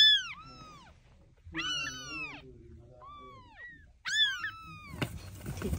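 Young kittens mewing: a string of high, downward-falling mews, the loudest right at the start and several close together. Near the end a scratchy rustling sets in.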